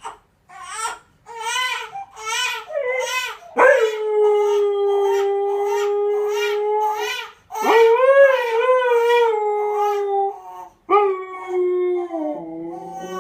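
A dog howling: a run of short wavering cries, then three long held howls, each lasting about three seconds.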